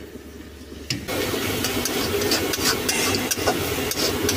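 Onion-tomato masala frying and sizzling in a metal kadai while a metal spoon stirs and scrapes it, starting suddenly about a second in as a steady crackling hiss with small clicks.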